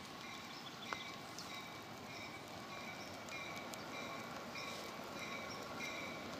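A railroad warning bell ringing in a steady rhythm, about two strokes a second, signalling an approaching train. A single click sounds about a second in.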